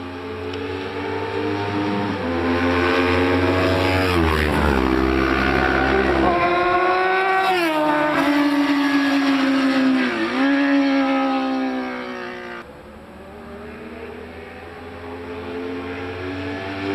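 Sport motorcycle engines at high revs racing past, their pitch climbing and then dropping sharply several times as they go by. Near the end, after a lull, another bike's engine grows louder as it approaches.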